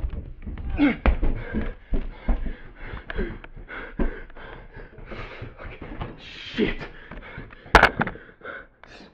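A person panting and gasping close to the microphone, with knocks and thumps from a handheld camera being moved about. A sharp, loud knock comes near the end.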